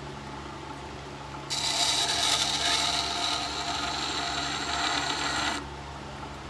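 Scissor blade clamped in a jig and ground against the turning stone of a WEN wet sharpening system, a test pass to check the bevel angle. A steady grinding rasp starts about a second and a half in and lasts about four seconds, over the low hum of the running grinder.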